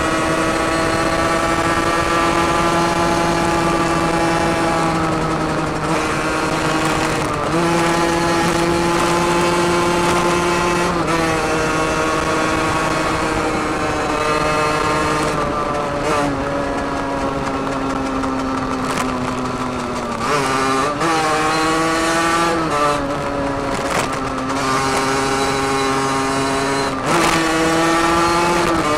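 Derbi Senda DRD 50 cc two-stroke single-cylinder engine running hard through an open sport exhaust while riding. It holds a steady high note for stretches, with several sudden steps and dips in pitch, the deepest dip about two-thirds of the way through before it climbs again.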